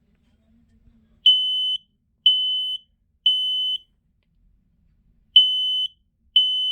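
Smoke alarm sounding on its test button: loud, high-pitched half-second beeps in the temporal-three evacuation pattern, three beeps about a second apart, a pause, then the next group of beeps.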